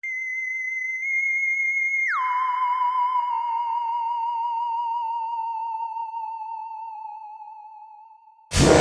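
A single electronic, theremin-like tone held high, then sliding down about an octave around two seconds in and wavering as it slowly fades. Loud music starts abruptly just before the end.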